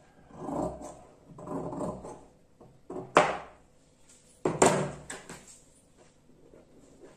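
Large tailoring scissors shearing through double-folded dress fabric: two long cutting strokes about a second apart. Then two sharp knocks, about three and four and a half seconds in, as the scissors are set down on the table and the cut piece is handled.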